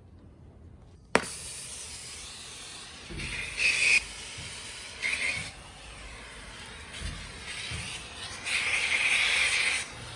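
Soldering torch on a hose from a gas tank: a sharp click about a second in, then a steady hiss of gas and flame that swells louder three times, the longest near the end, as the torch is lit with a flint striker and readied to heat a copper joint.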